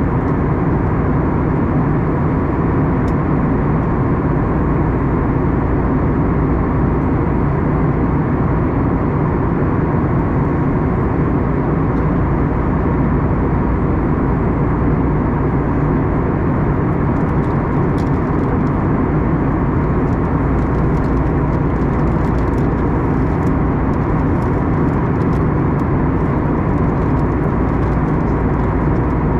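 Steady cabin noise inside an Airbus A321neo: an even, unbroken roar of engines and airflow, with faint light ticks in the second half.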